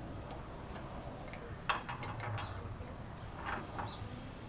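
A few light metallic clinks and taps of steel parts at a cast-iron bench vise while a bearing and spacer are set into a mower deck spindle housing to be driven home; two clinks, about a second and a half and three and a half seconds in, stand out.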